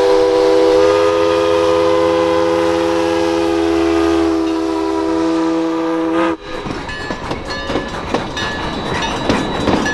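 Steam locomotive Alaska Railroad 152's whistle blowing one long, steady blast of several notes at once, which cuts off about six seconds in. The clatter and rumble of the train pulling away follows.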